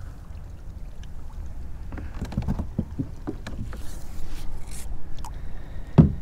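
A kayak being paddled: the paddle dipping and splashing, water dripping, and light knocks against the hull over a steady low rumble, with a sharp knock near the end.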